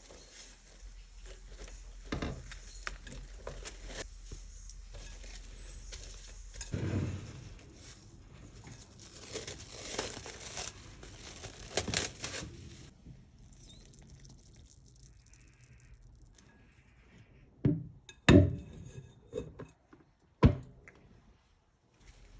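Kitchen baking-prep handling sounds: rustling, crinkling and scraping with soft knocks for the first half, then quieter, with three sharp knocks on a hard surface in the last few seconds.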